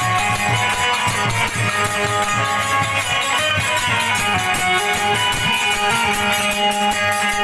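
Instrumental music: a plucked-string melody of held notes over a steady low beat.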